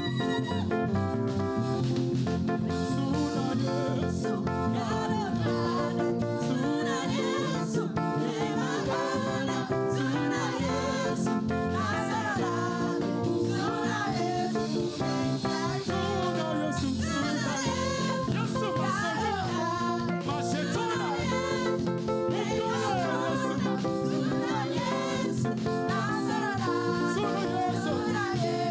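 Live gospel praise music: a band with guitar plays continuously while a voice sings a gliding melody over it.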